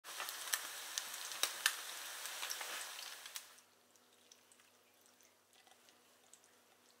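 Flour-coated Japanese smelt (wakasagi) frying in hot oil in a frying pan: a dense sizzle dotted with sharp pops, cutting off about three and a half seconds in. After that only faint drips and light taps as the vinegar-and-soy nanbanzuke marinade is poured over the fried fish.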